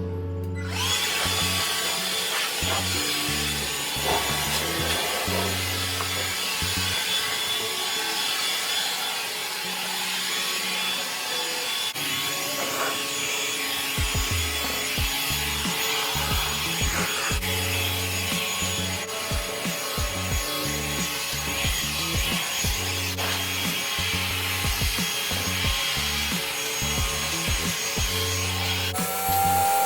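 Pressure washer jet spraying water on a brick patio: a steady hiss that starts just after the beginning and cuts off shortly before the end, with background music underneath.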